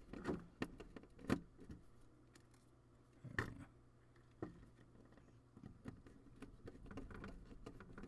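Scattered small clicks and scrapes of wires being fed into a screw terminal block on a circuit board and a small screwdriver working the terminal screws, over a faint steady low hum.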